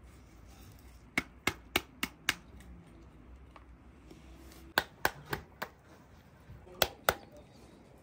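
Knife chopping onion on a wooden cutting board: sharp knocks in three short runs of about four a second, with pauses between them.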